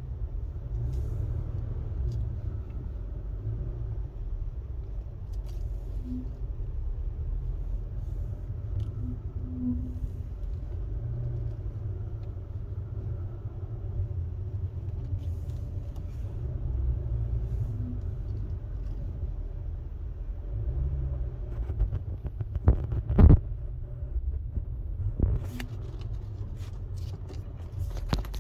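Low, steady road rumble inside a moving Acura TLX Type S. A few seconds before the end come a cluster of clicks and one loud, sharp knock: the noise the owner reports when the car turns.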